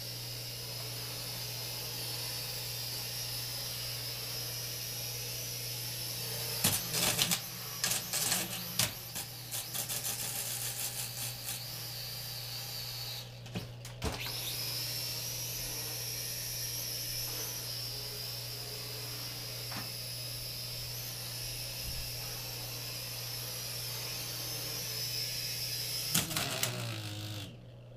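Small toy quadcopter drone flying, its propeller motors making a steady high whine, with a run of clicks and knocks in the middle and a brief dip a little before halfway. The whine cuts out near the end, when one of the blades catches in a ceiling tile.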